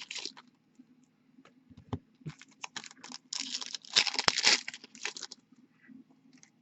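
Plastic trading-card pack wrapper crinkling and tearing as a pack is opened, in short irregular bursts with scattered light clicks; the loudest crinkling comes about halfway through.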